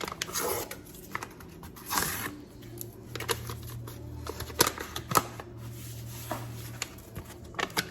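Paper packets of au jus gravy mix rustling as they are handled, opened and emptied onto a roast, with scattered light clicks and taps. A low steady hum sits underneath for a few seconds in the middle.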